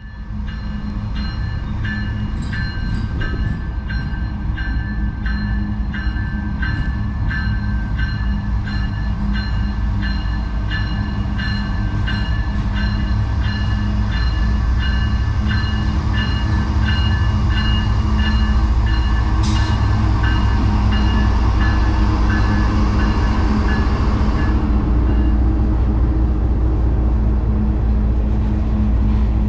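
Diesel freight locomotives rumbling and growing louder as the train approaches, with a bell ringing about twice a second until it stops about 24 seconds in.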